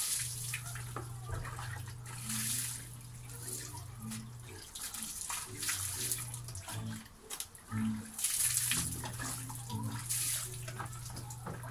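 Water poured from a plastic dipper splashing over a person bathing, in about four pours a few seconds apart, over a low steady hum.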